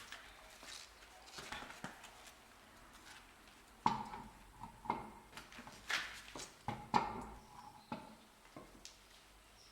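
Irregular metal clinks and knocks, a few of them ringing briefly, from wheel bolts and tools being handled and set down during a wheel change.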